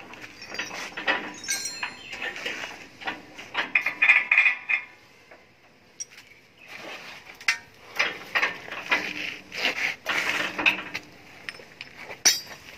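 Irregular metal clinks, clicks and knocks as a steel block-machine mould and its chain drive are worked on by hand with a tool, with a short lull midway.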